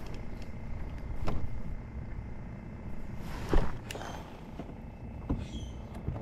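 Wind rumbling on the microphone, broken by three short knocks about a second, three and a half seconds and five seconds in.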